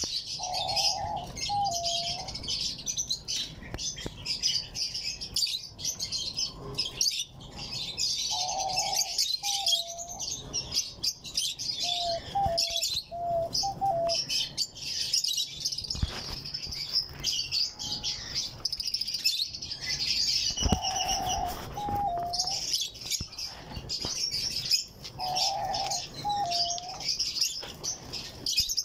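Dense chirping of many small cage birds, over which a diamond dove coos in short phrases about five times, each a held note followed by a dipping note.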